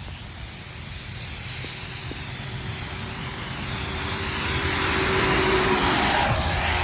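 A car driving past on a rain-soaked road. The hiss of tyres on wet pavement swells for several seconds and is loudest about five seconds in. As it goes by, its engine tone drops in pitch and the hiss begins to fade.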